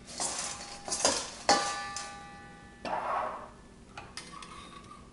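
Popcorn rustling as it is tossed in a bowl, with two sharp knocks against the bowl about a second in that leave it ringing briefly.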